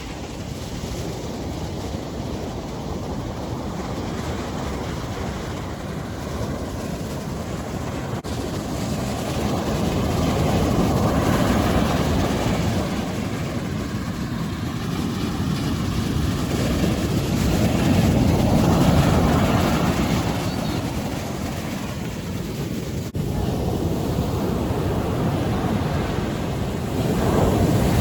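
Sea surf on a beach: waves breaking and washing in, swelling three times about eight seconds apart, with wind rumbling on the microphone.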